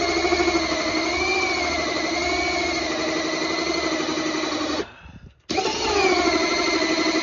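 Cordless drill driving a hole saw through drywall and into the plywood behind it. The motor runs steadily under load, its pitch wavering as it bogs and recovers. It stops abruptly about five seconds in and starts again about half a second later.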